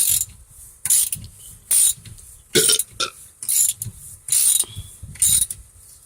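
Socket-wrench ratchet clicking in repeated strokes, about one a second, as the steering wheel's retaining nut is run down and tightened.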